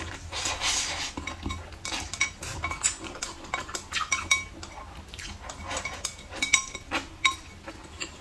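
A brief noodle slurp, then wooden chopsticks clicking and scraping against a ceramic bowl, many sharp taps, some of them ringing.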